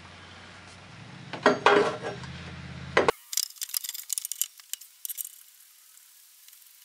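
Yamaha G29 golf cart's primary drive clutch being fitted onto the engine shaft by hand, metal on metal: a couple of sharp clunks about one and a half seconds in and a knock near three seconds, then a run of light metallic clinks and clicks.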